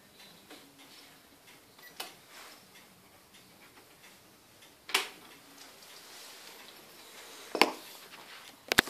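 Sharp plastic clicks and knocks from handling equipment: one about two seconds in, louder ones about five and seven and a half seconds in, and a quick double click near the end, over faint light ticking.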